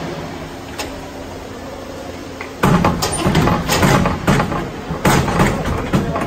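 Ice hockey game play in a rink: a steady hum, then, about two and a half seconds in, a run of loud, irregular knocks and clatter from the play.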